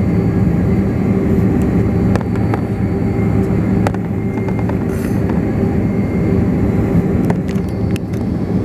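Embraer jet's turbofan engines running at taxi power, heard from inside the cabin while the plane taxis. A steady hum with a few held low tones.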